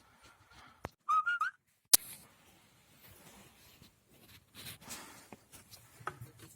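A short, wavering whistle lasting about half a second, about a second in, followed by a sharp click; otherwise faint scattered clicks and shuffling.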